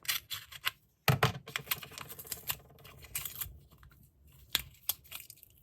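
Hands picking at and handling the wrapping of a masking-tape package, trying to open it: irregular clicks, taps and crinkles.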